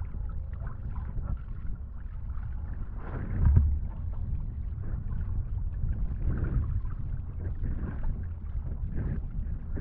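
Wind rumbling on the microphone with water swishing and splashing around a wingfoil board, and a louder low gust about three and a half seconds in.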